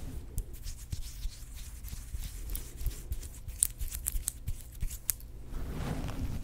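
Fingertips scratching and rubbing through hair against the scalp close to the microphone: a run of crisp, irregular crackles that stops about five and a half seconds in.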